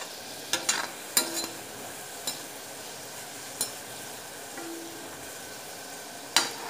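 Gulab jamun balls deep-frying in oil in a kadhai: a steady sizzle. A metal spoon knocks and scrapes against the pan several times as the balls are turned, with the sharpest knock near the end.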